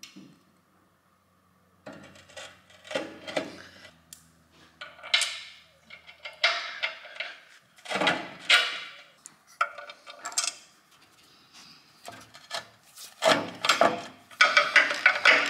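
Irregular metal clunks, knocks and scrapes as a heavy hydraulic pump-and-ram unit is handled and seated onto an engine crane's rusty steel frame. Music comes in near the end.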